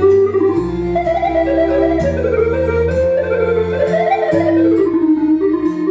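Live Romani instrumental music on synthesizer keyboards: held bass notes under a lead melody that glides and bends in pitch like a wind instrument.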